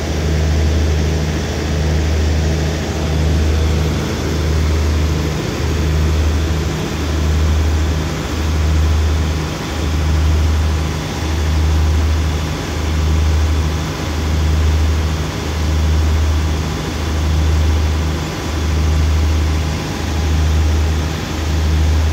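Diesel engines of a standing State Railway of Thailand passenger train idling. The low drone throbs steadily, swelling and fading about once a second.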